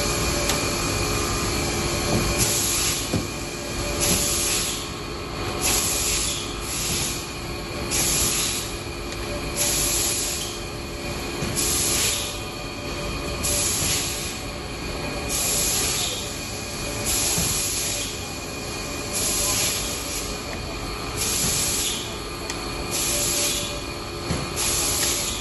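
Machinery running with a steady hum, and a hiss that comes back every second and a half to two seconds.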